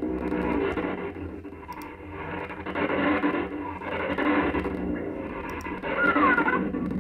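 Recorded animal sound effects playing back from an app in an Android emulator, several overlapping one another as a rough, noisy din. Near the end a short pitched call slides down and back up.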